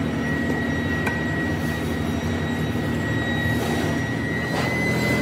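Steady drone of workshop machinery running, with a constant high-pitched whine over a low hum.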